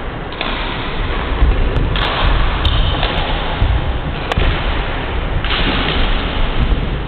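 Badminton rally: several sharp clicks of rackets striking the shuttlecock, the clearest about four seconds in, over a loud steady low rumble and hiss of the hall.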